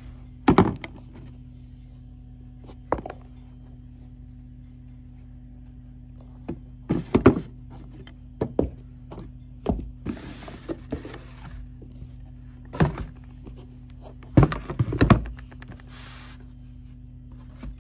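Sneakers being handled and set into a cardboard shoebox: a series of irregular thunks and knocks of the shoes against the box, with short stretches of rustling, over a steady low hum.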